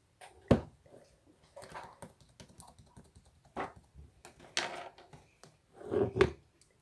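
Slime being squeezed and poked by hand, making irregular sticky clicks and pops, with the loudest pops about half a second in and about six seconds in.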